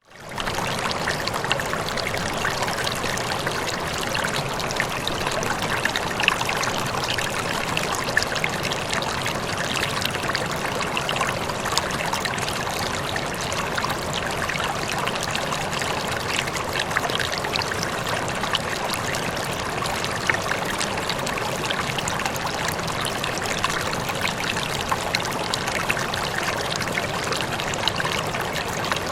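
Steady running water of a stream, trickling and splashing with many fine droplet sounds; it dips out briefly and fades back in at the very start.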